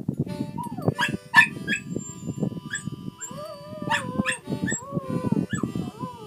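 A small dog howling, its drawn-out wavering howls rising and falling in pitch, with a few sharp yips about a second in and again around four seconds. Wind buffets the microphone underneath.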